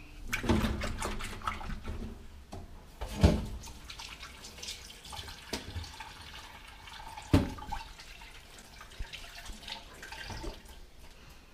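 Kitchen tap running into a stainless steel sink, with water splashing, and a few sharp knocks of pans and dishes being moved in the sink.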